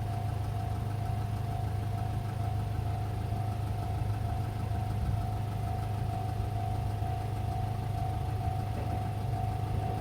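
An engine idling steadily: an unchanging low hum with a constant higher tone above it.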